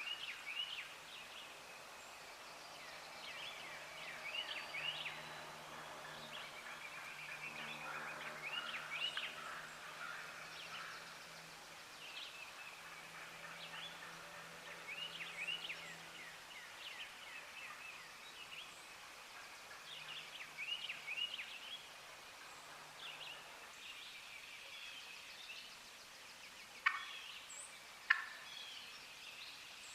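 Wild turkey gobbling several times in bursts a few seconds apart, with other birds calling, a faint low hum underneath, and two sharp clicks near the end.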